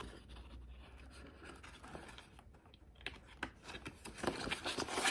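A picture book's paper page being handled and turned: soft rustling and light scraping, faint at first and louder in the last two seconds.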